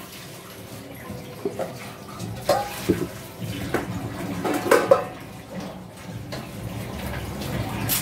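Granulated sugar tipped from a metal measuring cup into a steel sifter, then cooking oil poured into the cup, with light clinks of metal kitchenware.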